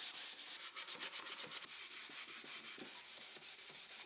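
220-grit sandpaper rubbed by hand over pine in quick, even back-and-forth strokes, a faint scratchy rasp.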